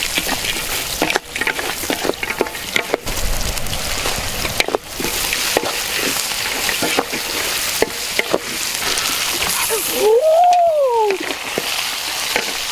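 Food frying and sizzling in a pan while it is stirred, with frequent sharp clicks. About ten seconds in, a short tone rises and falls in pitch.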